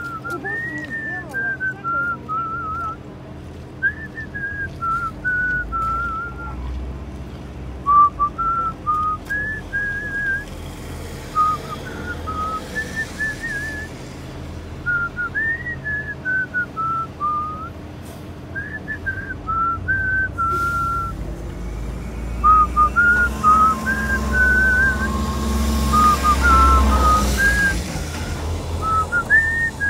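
A person whistling a slow tune with the lips, one clear note after another. A low rumble swells in underneath near the end.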